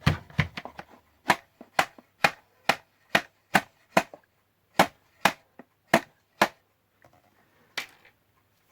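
Sharp knocks on a stuck part of a Roberts R717 radio, struck to try to free it: a quick cluster at first, then about a dozen even knocks at roughly two a second, and one last knock near the end.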